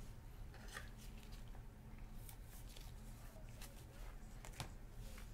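Faint rustling and light clicks of a trading card being handled in a clear plastic sleeve by hands in nitrile gloves, a few separate ticks over a low steady hum.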